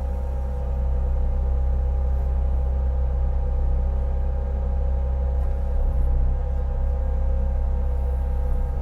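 An engine running steadily with a deep, even hum and a few steady higher tones, its pitch barely changing.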